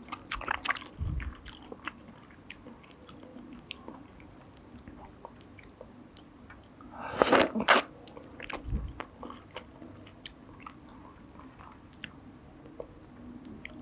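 Close-up eating of soup noodles: soft chewing with many small wet mouth clicks, and one louder noisy burst, a slurp, about seven seconds in.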